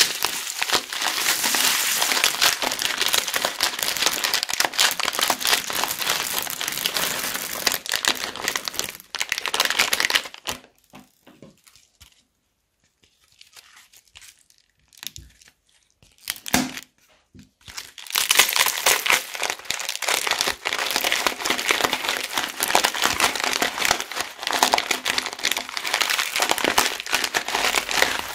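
Clear plastic piping bags packed with cut drinking-straw pieces and beads being squeezed and handled, giving a dense, crisp crinkling and crackling of plastic. It stops for about seven seconds near the middle, with only a few small handling sounds, then starts again.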